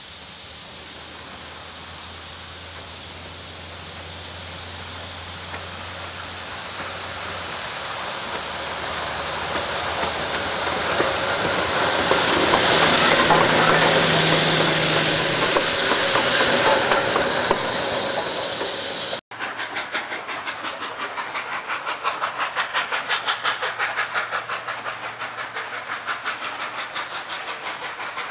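Steam locomotive working hard as it approaches and passes close by, its steam hiss and exhaust growing loud and peaking about halfway, then fading. After a sudden cut, a more distant steam train working toward the listener with steady exhaust beats, about two to three a second.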